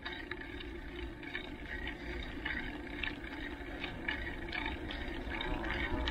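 Steady wind rush on the microphone and mountain-bike tyres rolling over asphalt, with scattered light clicks.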